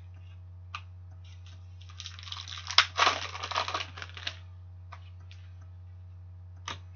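Trading cards being handled and slid against one another: a few single flicks, then about two seconds in a couple of seconds of rustling and scraping with sharper snaps, over a steady low hum.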